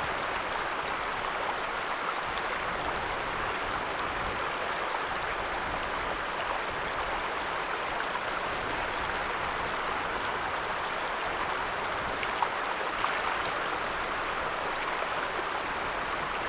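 Small shallow stream running over rocks, a steady rush of water, with one brief click about twelve seconds in.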